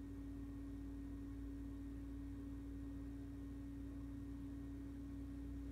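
A steady, unchanging hum at a single low-middle pitch, with a faint low rumble beneath it.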